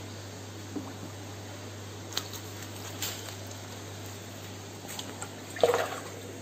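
Steady low hum and hiss of aquarium equipment, with a few light knocks and one louder, brief handling noise near the end.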